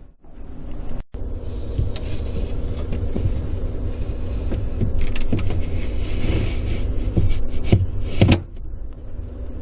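A refrigerator shelf being slid along its rails into the fridge: a continuous plastic scraping and rubbing with a few knocks, the loudest near the end as it seats, then it stops.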